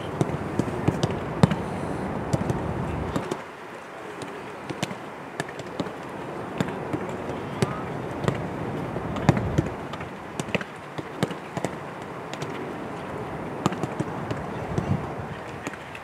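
Footballs being struck back and forth in a passing drill: a run of sharp, irregular kicks of boot on ball, a few each second, with players' voices calling in the background.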